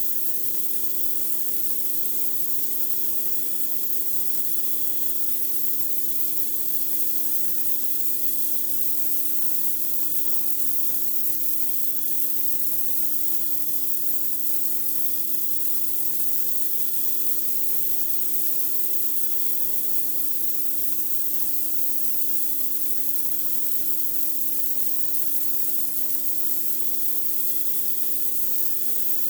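Pressure washer spraying a driveway without a break: a constant hiss of the high-pressure water jet over a steady hum from the machine.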